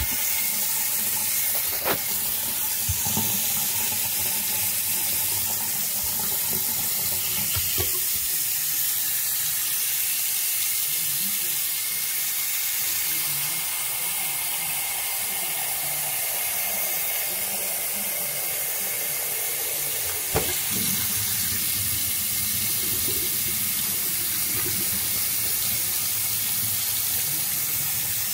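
Bathroom sink faucet running a steady stream into the basin and down the drain, testing the newly repaired drain. A few short knocks sound over the running water, the clearest about two-thirds of the way through.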